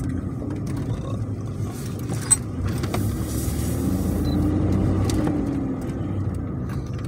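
1993 Ford Explorer's 4.0 L OHV V6 running steadily as the truck is driven, with one brief click about two seconds in. The engine note rises a little and eases off around the middle. It is running well, its EEC-IV engine computer freshly recapped.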